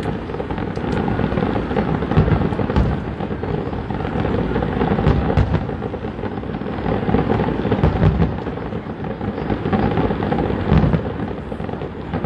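Fireworks display: a continuous rumble of overlapping booms, with sharper bangs and crackles scattered through it.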